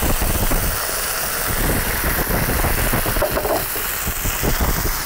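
A steady hiss with a low rumble underneath, without a break.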